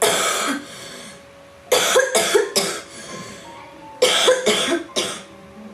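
A woman coughing in three short bouts of two to four harsh coughs each. The coughs hurt her belly, which is cramping from her period.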